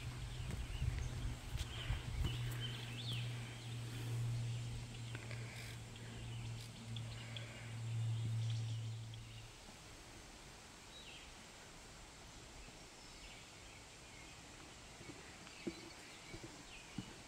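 Wind buffeting the microphone as a low rumble that stops abruptly about nine seconds in, over a quiet forest ambience with scattered faint bird chirps. A few light footfalls on the trail are heard near the end.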